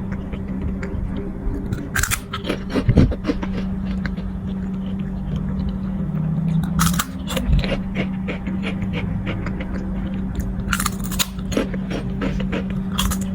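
Crunchy baby snack being bitten and chewed: irregular crisp crackles, several louder crunches among them, over a steady low hum.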